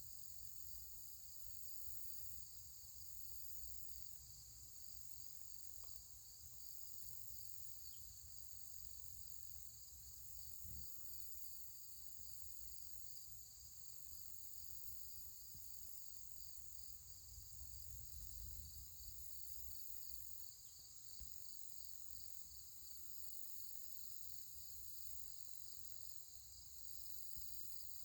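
Steady, high-pitched insect chorus of crickets or similar trilling insects, with a rapid, even pulsing in the lowest of their notes. A faint low rumble runs underneath.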